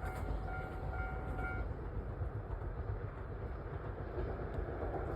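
Moka Railway train rumbling low and steady as it moves away past the level crossing, with a thin steady whine over about the first second and a half.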